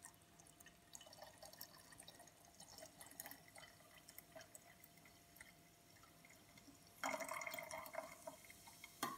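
Liquid, most likely tonic water, poured slowly down a bar spoon into a glass over a large ice cube: faint trickling with light clinks, then a louder stretch of pouring lasting about a second and a half near the end.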